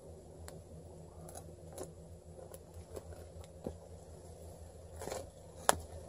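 A small wood-and-charcoal fire in a folding brazier crackling, with scattered light pops and one sharp snap near the end, over a steady low hum.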